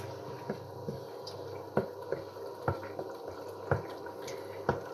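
Sofrito of caramelized vegetables and crushed tomato bubbling in a pan over raised heat, with soft pops and plops about once a second over a faint steady hum.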